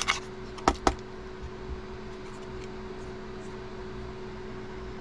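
Hand scraping of old screen adhesive off a phone frame, quick rhythmic strokes that stop at the start, followed by two sharp clicks under a second in from the small tool against the phone. A steady low electrical hum runs underneath, with a few faint small taps.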